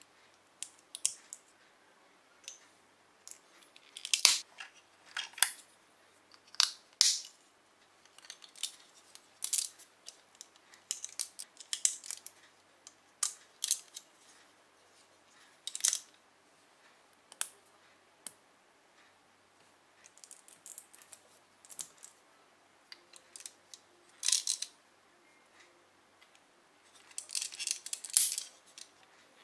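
Plastic LEGO bricks and ball-joint parts being handled and snapped together: irregular sharp clicks and small rattles, with a quick cluster of clicks near the end.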